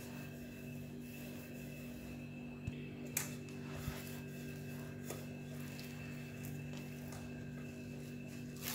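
A wooden rolling pin rolls biscuit dough under plastic film, giving faint rubbing and a few light knocks over a steady low hum.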